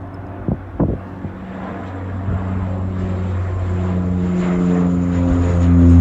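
De Havilland Canada Dash 8-300 (Q300) turboprop departing, its propellers making a low drone of several steady tones that grows steadily louder. Two brief thumps sound near the start.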